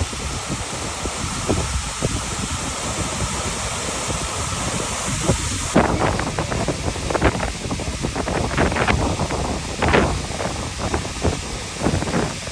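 Steady rushing of a waterfall. From about halfway through, wind buffets the microphone in repeated gusts.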